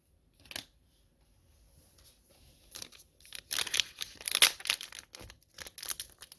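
Wrapper of a football trading-card pack being torn open and crinkled: a brief rustle, then, about three seconds in, a busy run of loud crinkling and tearing.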